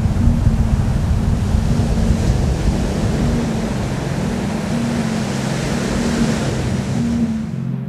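Ocean surf breaking and washing up a sandy beach, a steady rush that cuts off suddenly near the end.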